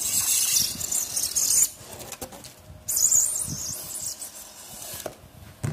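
Hand-held pre-insulated duct panel cutter drawn through a foil-faced insulation panel: two long, hissing scrapes of the blade slicing foil and foam, the first about a second and a half long, the second starting about a second after it ends.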